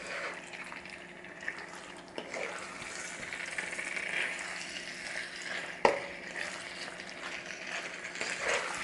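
Wooden spatula stirring chunks of duck, pineapple and tomato through thick curry paste in a hot wok, with soft scraping and a light sizzle underneath. A single sharp tap about six seconds in, the loudest sound, is the spatula knocking against the wok.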